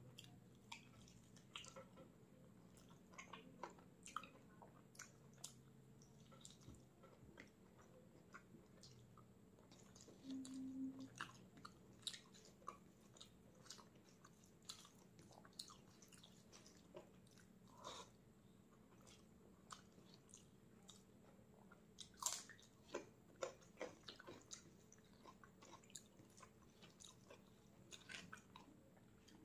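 A person chewing and biting food, heard as faint, irregular wet mouth clicks with occasional small crunches.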